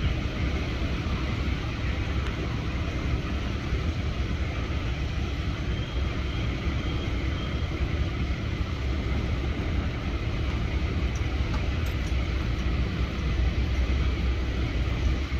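Heavy diesel machinery running steadily: a continuous low engine rumble with a broad hiss over it.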